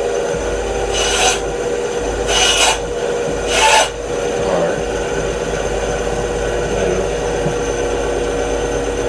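Benchtop band saw running with a steady motor hum, its blade biting into a piece of wood in three short, louder cutting bursts within the first four seconds; after that the saw runs on with only its steady hum.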